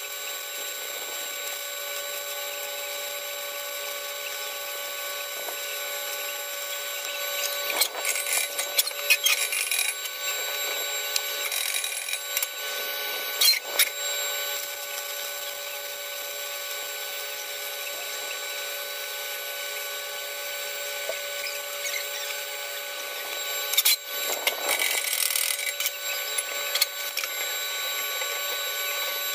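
Steady machine whine over a hiss, with a few short bursts of metal clatter and knocks as steel pipe and stove parts are handled, the loudest about a third of the way in and again near the end.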